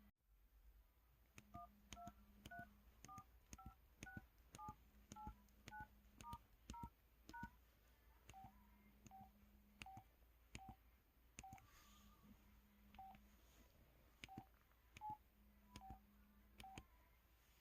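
Keypad of a KTF-X3500 mobile phone playing its electronic key tone: each key press gives a short, quiet two-pitch beep like a touch-tone, the pitches changing from key to key, with a small click from the key itself. About two presses a second, with a faint low hum coming and going.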